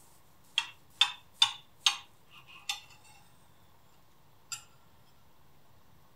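Metal fork and knife clinking against a ceramic plate: four sharp clinks about half a second apart, a few softer ones, then a single clink a couple of seconds later.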